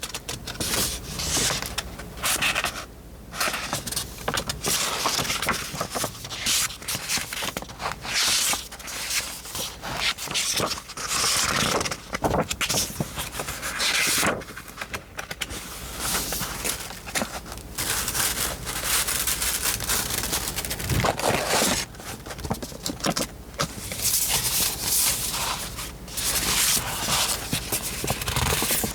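Sheets of textured paper being handled, rustling and sliding against each other in short, irregular bursts.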